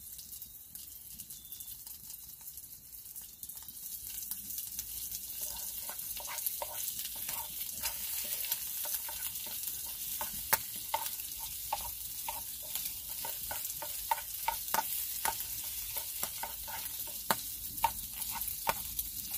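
Scrambled eggs and sausage sizzling in a skillet over a wood fire. A few seconds in, a utensil starts scraping and tapping against the pan as the eggs are stirred, in many short clicks over the steady sizzle.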